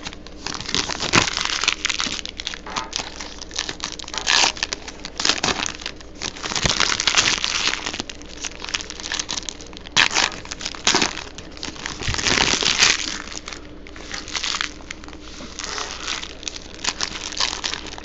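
Baseball-card pack wrapper crinkling and cards rustling in the hands as packs are opened and the cards sorted, in uneven bursts with small clicks.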